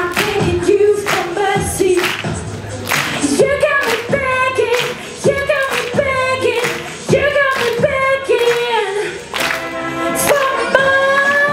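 A woman singing a song live into a microphone, with acoustic guitar accompaniment and a steady beat of sharp hits under the voice. Near the end she moves into one long held high note.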